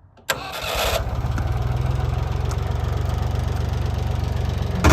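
The engine of the bucket-lift machine (a loader) starts about a third of a second in with a short burst and catches, then runs steadily at idle with an even low throb.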